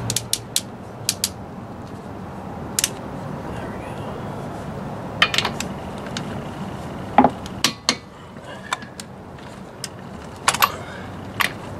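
Sharp metallic clicks and clinks, about a dozen at irregular intervals, from a half-inch click-type torque wrench and its socket being worked on car wheel lug nuts as they are tightened.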